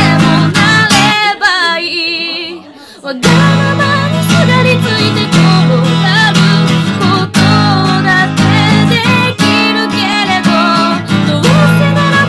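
A young woman singing while strumming an acoustic guitar. Just over a second in, the strumming drops away under a held, wavering sung note, then comes back in full about three seconds in.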